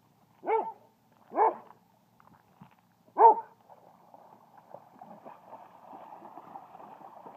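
German Shorthaired Pointer giving three short play barks, the third the loudest, then dogs wading and splashing through shallow pond water.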